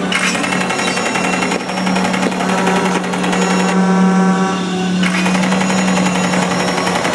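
Stunt-show watercraft engines running hard with a steady, rapidly pulsing drone over the rush of churned water and spray.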